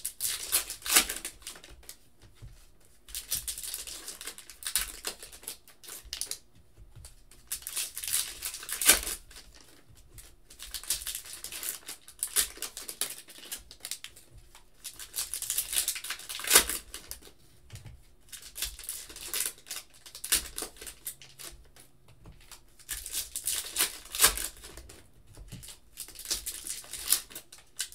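Foil-wrapped baseball card packs being torn open and crinkled, with the cards inside flicked through and stacked. Bursts of crinkling rustle and crisp card clicks come every few seconds, with short lulls between.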